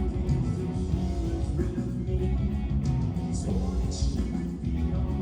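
A rock band playing, with guitar to the fore over a heavy bass.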